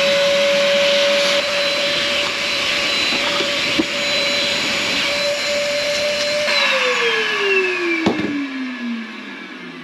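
Ash vacuum motor running with a steady whine and rushing air. About six and a half seconds in it is switched off and spins down, its pitch falling and the sound fading. There is a short knock about eight seconds in.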